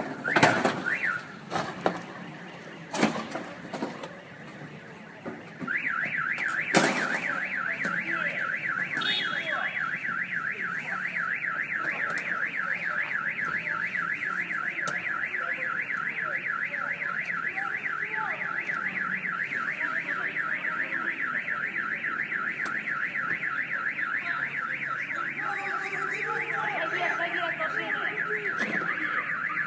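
An electronic alarm sounds a fast, steady warble, starting about six seconds in after a few sharp knocks.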